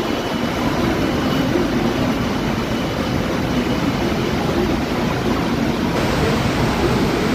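Steady hiss of heavy rain, with a passenger train rolling slowly through the station yard underneath it.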